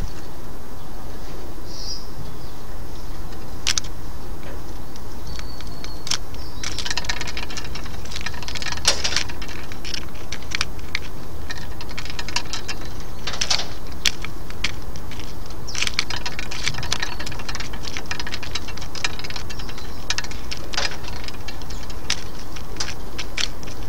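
Great tit pecking at peanuts in an aluminium-foil tray on a corrugated roof sheet: a run of irregular light taps and foil crinkles, thickening from about six seconds in, over a steady hiss.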